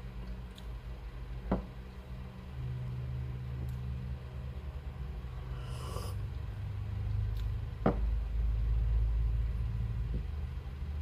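Two sharp knocks of small glass espresso shot cups being set down on the countertop and the espresso press's drip tray, about one and a half seconds in and about eight seconds in, over a steady low hum.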